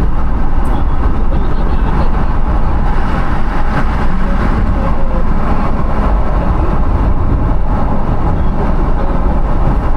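Steady road and engine rumble inside the cabin of a moving car, heavy in the low end.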